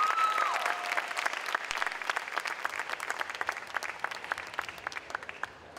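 Audience applauding, with a brief cheer at the start; the clapping thins out and fades away.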